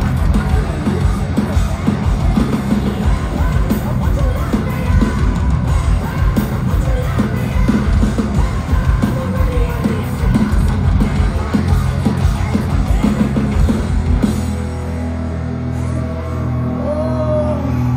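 Heavy metal band playing live at high volume, with drums, distorted guitars and vocals. About three quarters of the way through, the drums drop out, leaving held low chords and a sliding vocal or guitar line.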